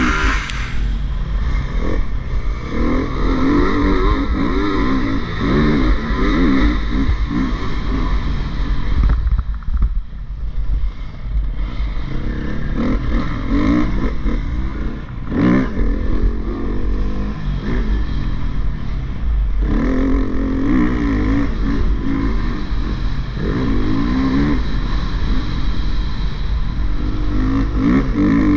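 Motocross bike engine revving up and down as it is ridden over a dirt track, easing off briefly about ten seconds in, with wind rumble on the microphone.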